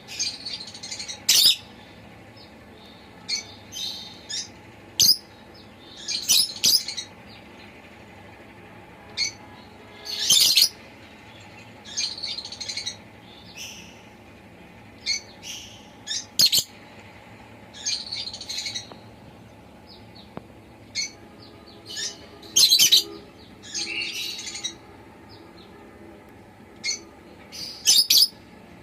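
Pet lovebird chirping: short, high, sharp chirps and squeaky calls in irregular bursts, some in quick clusters. There are gaps of a second or two between them over a faint steady background hum.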